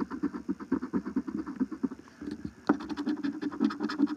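Coin scraping a scratch-off lottery ticket in quick back-and-forth strokes, several a second, with a short pause about two seconds in.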